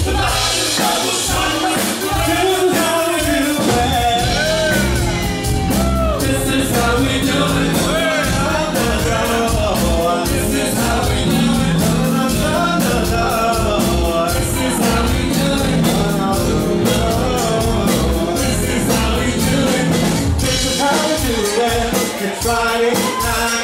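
Live band playing an up-tempo dance song with a steady drum beat and bass guitar, a lead vocalist singing over it.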